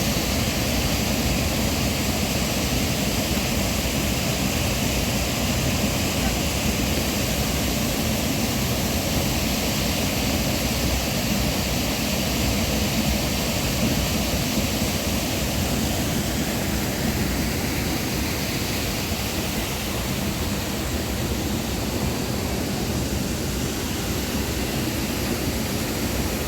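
Waterfall rushing: a loud, steady, even wash of falling water.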